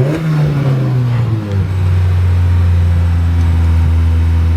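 1992 Honda Civic engine idling with its exhaust silencer removed: the idle sits high, then sags back to a lower steady idle about a second and a half in. The idle is unsteady, revving high and dying out at random, which puzzles the owner.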